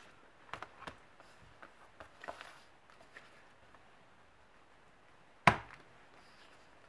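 Metal ring mechanism of a Filofax ring-binder planner snapping with one sharp, loud click about five and a half seconds in, after a few light taps and rustles of the planner and paper inserts being handled.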